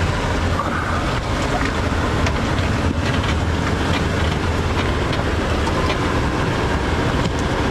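Jeep running slowly over a rough off-road trail: a steady low engine and tyre rumble with a few light scattered knocks.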